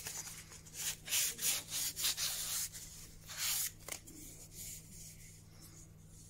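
Sandpaper rubbed by hand over the wooden clock weight in a run of short strokes to smooth a rough spot on a joint. The strokes die away after about four seconds, leaving only quiet handling.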